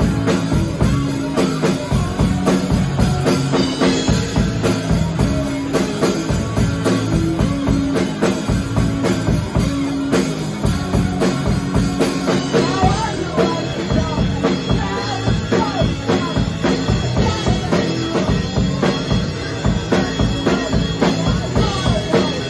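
Rock band playing live: a drum kit keeps a steady beat under electric guitars and an electric bass line.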